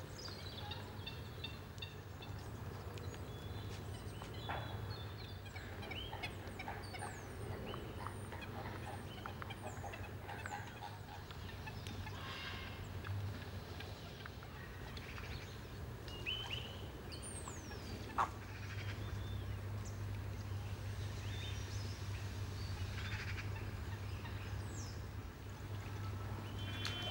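A flock of zoo birds calling: scattered short chirps, squawks and honk-like calls, some sliding down in pitch, over a steady low hum.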